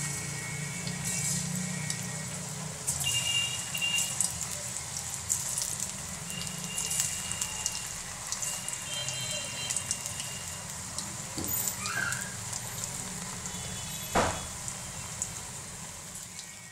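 Cornflour-coated baby corn deep-frying in hot oil in a kadhai: a steady crackling sizzle, with pieces dropped into the oil one at a time. A single short knock sounds near the end.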